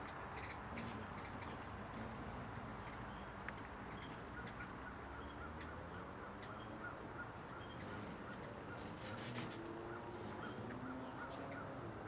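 Outdoor summer ambience: a steady high-pitched insect drone, with a bird repeating a short note about twice a second from a few seconds in.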